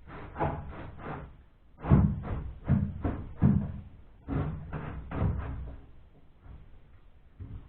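Model railway layout module being slid and bumped into position on its framework: a series of knocks and bumps, the loudest about two seconds in, tailing off after about five seconds.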